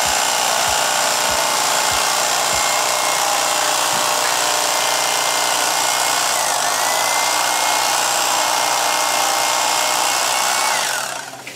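Electric bread knife running steadily, its blades sawing through a layer of camping-mat foam; the motor winds down and stops near the end.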